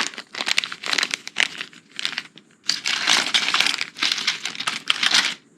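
Packaging crinkling and rustling in short, irregular bursts as hearing-aid accessories are handled and unpacked.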